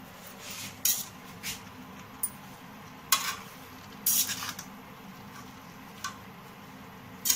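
Metal spatula stirring chopped fenugreek leaves and potatoes in a steel kadai, with irregular metal-on-metal scrapes and clinks against the pan, the loudest about three and four seconds in.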